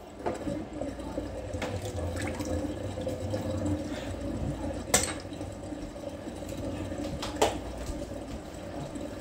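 Steady sound of running water, with a sharp knock about five seconds in and another about seven and a half seconds in.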